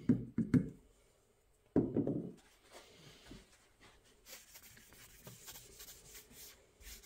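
A paper towel rubbing oil over a blued steel axe head: soft, steady scrubbing that grows louder about four seconds in.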